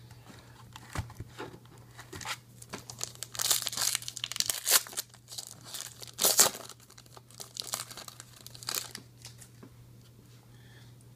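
Foil wrapper of a Topps trading-card pack being torn open and crinkled by hand. It makes an irregular crackling that is loudest in the middle, with a few lighter rustles and clicks of handling before and after.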